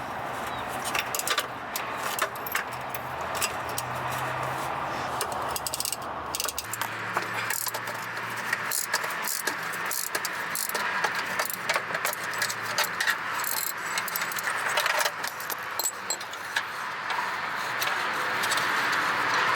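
Metal hand tools and parts clinking and rattling in irregular clicks during work under a car. A low steady hum stops suddenly about six and a half seconds in.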